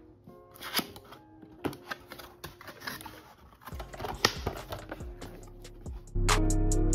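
Cardboard packaging being handled and opened: scattered taps, scrapes and flap sounds. Loud background music with a drum beat comes in about six seconds in.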